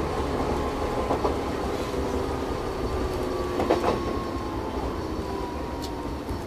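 Chichibu Railway 1000 series electric train (a former JNR 101 series) running, heard from inside at the front window: a steady low rumble with a thin whine that slowly falls in pitch as the train slows, and a few wheel clacks on the track, loudest near four seconds in.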